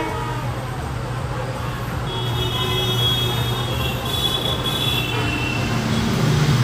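WDP4B diesel-electric locomotive's two-stroke engine running as the train approaches along the platform, a steady low drone that grows louder near the end.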